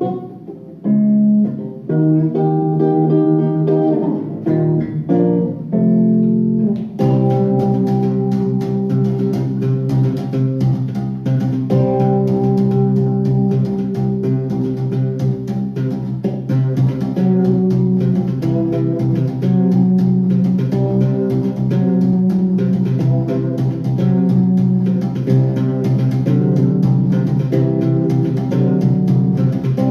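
Solo multi-string electric bass guitar playing a flamenco-tinged piece: plucked melody notes over sustained low notes. The sound becomes fuller and busier about seven seconds in.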